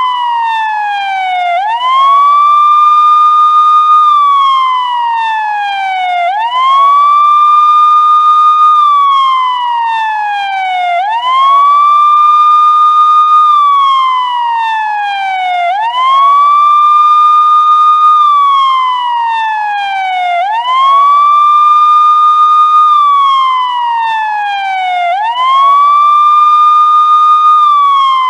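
Police car siren in wail mode: the tone sweeps quickly up, holds at the top for about two seconds, then slides slowly back down, repeating about every four and a half seconds.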